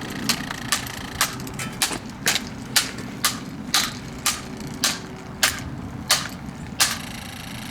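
Repeated sharp blows on a plastic SMC table fan, a dozen or so strikes at about two a second, over a steady low hum.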